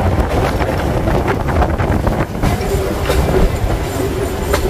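Passenger train running at speed, heard from its open doorway: a steady rumble of wheels on rails with irregular clicks over the rail joints, and a faint steady tone in the second half.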